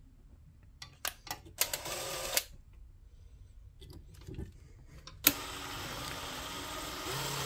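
A DeWalt 20V XR cordless drill starting with a click about five seconds in and then running steadily as a Spyder Mach Blue bit drills into a hard steel bracket. Before it, a few handling clicks and a short burst of noise near two seconds.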